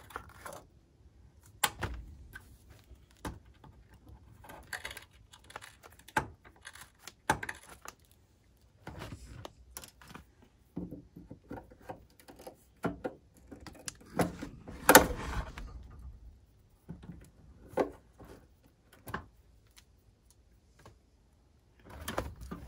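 Handling noise of hands working electrical wire and tools: irregular clicks, knocks and rustles, with a louder clatter about fifteen seconds in.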